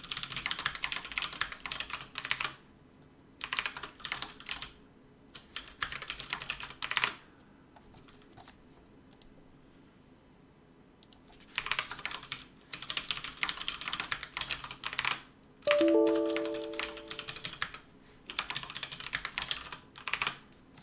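Computer keyboard typing in quick bursts with short pauses between them. A short electronic chime of a few notes sounds about two-thirds of the way through and fades over about a second and a half.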